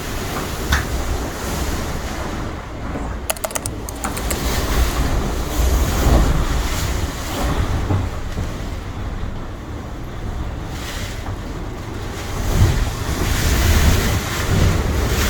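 Typhoon wind gusting hard, rumbling on the microphone over a steady rushing noise of wind and sea. There is a brief burst of sharp rattling clicks about three seconds in.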